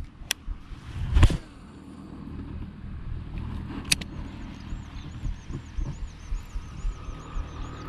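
Wind buffeting the microphone as a low pulsing rumble, with a sharp click just after the start, a short loud whoosh about a second in, and another click about four seconds in from handling the baitcasting rod and reel. From about halfway, a high chirp repeats about three times a second.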